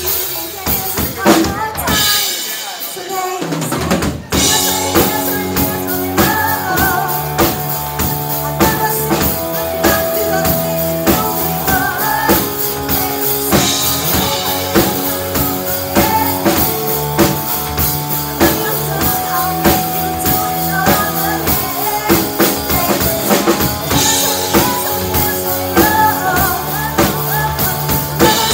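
Live rock band playing with a drum kit keeping a steady beat under bass and electric guitar. Around two seconds in the low end drops out briefly, and the full band comes back in with a loud hit about four seconds in.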